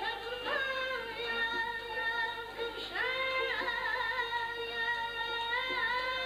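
Azerbaijani mugham: a young singer holds long, high sung notes that slide up into each new pitch, about half a second and three seconds in, with kamancha and tar accompanying.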